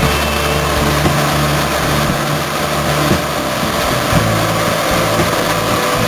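Claas Lexion 570 combine harvester running under load while cutting and threshing winter barley: a steady drone of engine and threshing machinery.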